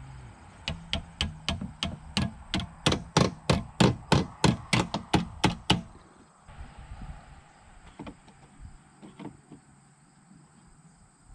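Hand tool working sheet-metal valley flashing: a run of about seventeen sharp, evenly spaced clicks, roughly three a second, growing louder then fading over about five seconds, followed by a few faint scattered clicks.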